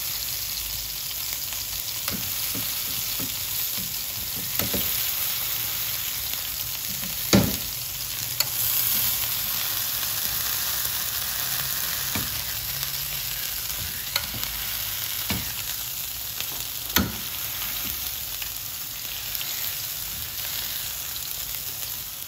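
Smashed beef patties sizzling in smoking-hot oil on a flat griddle pan, a steady high hiss. A few sharp knocks come through it as the metal spatula and the pressing pan strike the griddle.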